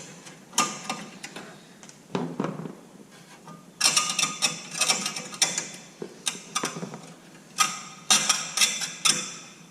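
Hand-tool work on a Jeep Wrangler YJ headlight surround: bursts of mechanical clicking and rattling, the busiest stretches in the middle and near the end.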